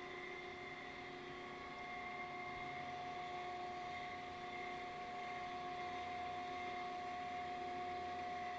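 Steady hum of machine-shop equipment: a few unchanging steady tones over a low hiss.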